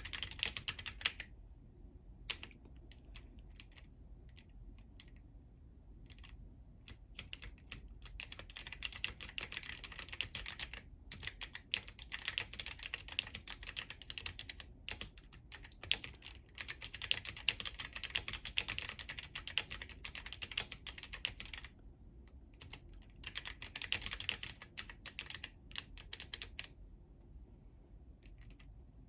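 Typing on a Womier K68 mechanical keyboard with clicky Kailh Box White switches and crystal keycaps, struck with long nails: fast runs of sharp key clicks broken by brief pauses.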